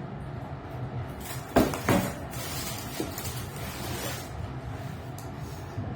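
Handling and rustling of a shoe box and its packaging, with two sharp knocks about a second and a half in and a few lighter clicks after, over a steady low hum.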